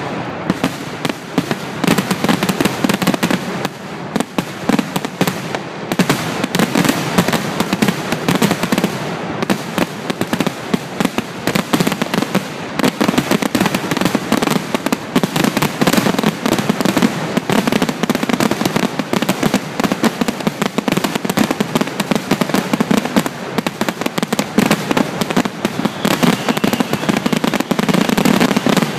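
Fireworks finale barrage: aerial shells bursting in rapid, overlapping succession, many bangs a second with no pauses.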